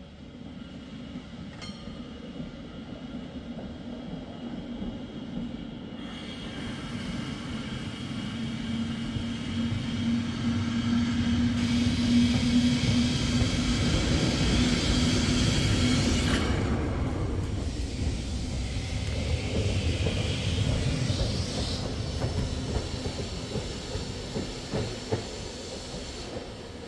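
Tram running on rails: a rumble with a steady hum that builds to its loudest about halfway through, then fades.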